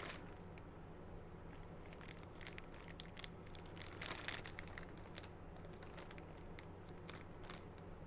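Small plastic accessories and their packaging being handled: scattered light clicks and crinkles, with a brief burst of crinkling about four seconds in, over a faint steady hum.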